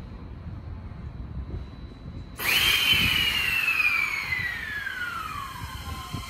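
JR E131 series electric train starting to pull away. A sudden hiss bursts in about two and a half seconds in, together with an electric whine that falls steadily in pitch and levels off into a steady tone near the end.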